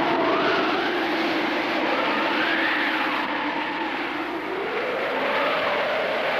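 Strong mountain wind rushing steadily, with slow whistling tones that rise and fall as it gusts.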